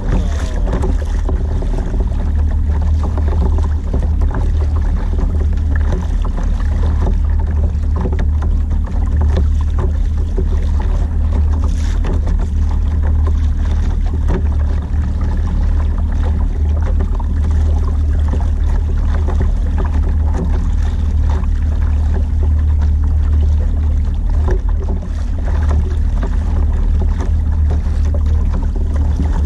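Water rushing and splashing against the hull of a fishing kayak moving on a choppy sea, over a steady low rumble of wind on the camera's microphone.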